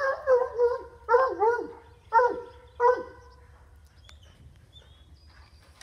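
A dog barking: about five loud barks in the first three seconds, some with a falling tail, then it stops.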